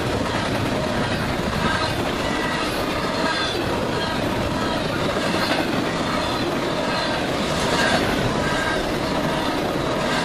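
Double-stack intermodal freight cars rolling past on steel rails: a steady, loud rumble of wheels on track, with short high-pitched wheel squeals breaking in every second or so.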